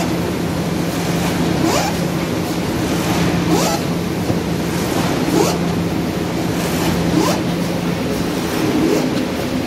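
XY-MY-1500 fully automatic flat-bed die-cutting and creasing machine running through its cycle. A steady hum, with a clatter about every two seconds, each one led in by a short rising sweep.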